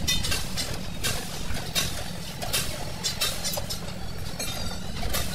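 A vehicle engine idling as a steady low rumble, with irregular sharp metallic clicks and knocks over it.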